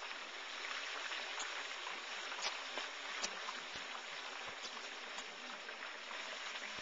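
Whole turkey deep-frying in a pot of hot oil: steady sizzling and bubbling, with scattered sharp pops.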